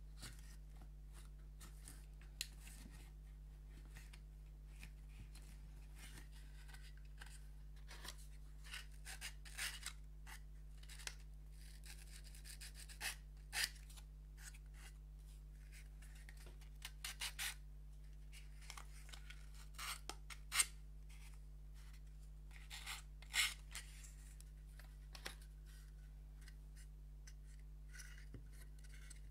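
Thin wooden puzzle pieces being handled and fitted together by hand: scattered light clicks and short scraping rubs at irregular intervals, busiest in the middle, over a steady low hum.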